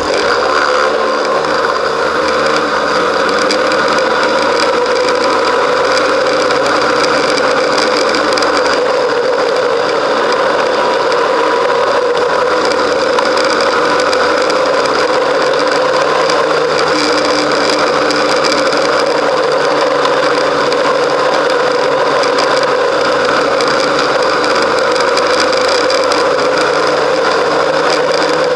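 Snowmobile engine running steadily at trail-riding speed, heard from a camera mounted on the sled itself, with short knocks here and there.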